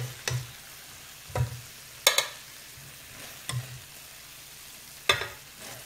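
Metal tongs clinking against a pan and a plate about five times, the loudest about two seconds in, over the faint steady sizzle of coconut milk simmering in the pan.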